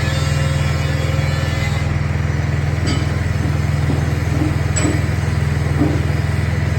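Small Honda petrol engine running steadily at constant speed, driving a coconut milk press, with a couple of faint clicks about three and five seconds in.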